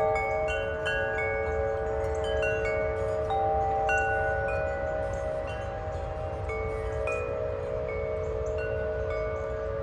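Wind chimes ringing in a gust of wind: scattered strikes at several pitches over long, sustained lower tones. Wind rumbles on the microphone underneath.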